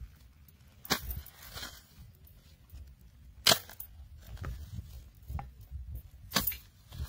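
Plastic bottle trap being handled: sharp crinkling cracks of the plastic three times, the loudest about three and a half seconds in, over a low rumble.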